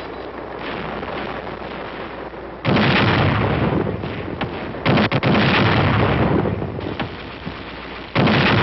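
Artillery firing: three heavy booms, about three, five and eight seconds in, each trailing off in a long rumble, over a steady noisy rumble before the first.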